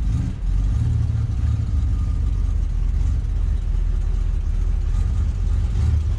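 Older Class C motorhome's gasoline engine running at a steady low rumble near idle while the motorhome creeps backward.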